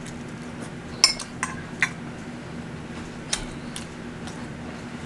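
A metal fork clinking against a ceramic plate several times: a quick run of sharp clinks about a second in, and two more near the middle, as the fork is set down. A faint steady hum runs underneath.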